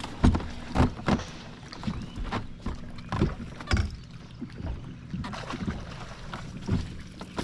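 Irregular knocks and thumps on a small bass boat, about a dozen of them with no steady rhythm, the loudest about a quarter-second in, near one second, and between three and four seconds.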